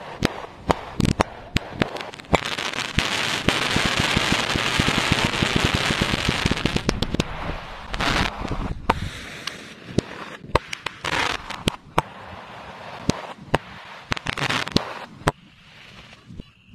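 Fireworks going off: many sharp bangs and pops, with a dense stretch of crackling from about two to seven seconds in, then scattered pops thinning out near the end.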